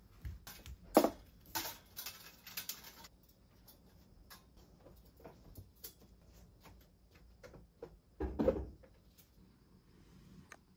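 Metal folding clothes-drying rack being set up and a blanket laid over it: a scatter of light clicks and knocks, loudest about a second in, with a heavier thud about eight seconds in.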